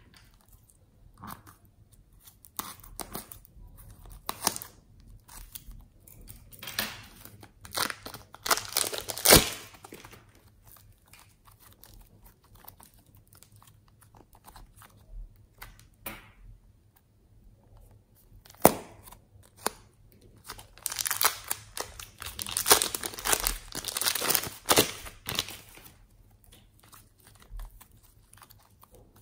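Soft rainbow slime being squeezed, pressed and pulled apart by hand, giving sticky crackling and tearing sounds that come in two busy spells with scattered quieter pops between.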